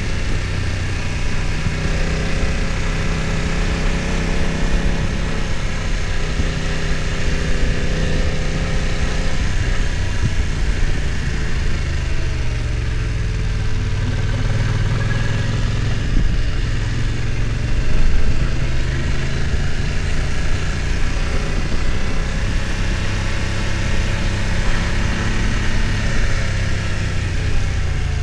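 BMW F900 XR's parallel-twin engine running at low revs, its pitch rising and falling with the throttle as the motorcycle climbs, over a steady rush of wind and road noise.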